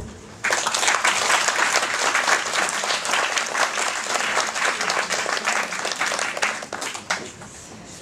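Audience applauding, starting about half a second in and dying away about seven seconds in.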